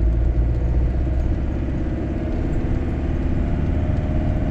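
Engine and road noise heard from inside the cab of a 1996 Auto-Trail Scout motorhome driving on a wet road, a steady low rumble.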